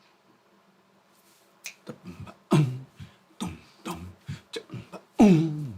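A man voicing a rhythm in short, sharply attacked syllables with clicking sounds, about two or three a second, starting after a second and a half of quiet. He is sounding out the accented off-beat pulse of a South American rhythm.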